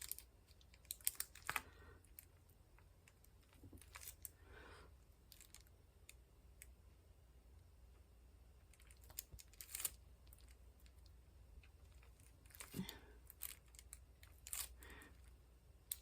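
Faint, scattered small clicks and taps of diamond painting: a drill pen picking up square resin drills and pressing them onto the sticky canvas.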